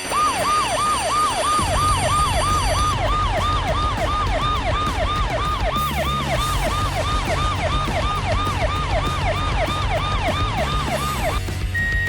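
Emergency-vehicle siren sounding in fast repeated falling sweeps, about three a second, over a low vehicle rumble; the siren stops just before the end, followed by a short beep.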